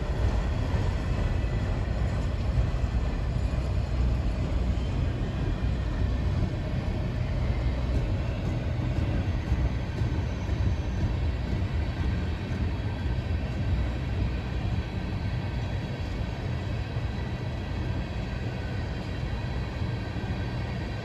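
Train rolling past with a steady low rumble and faint wheel tones, slowly fading as it moves away.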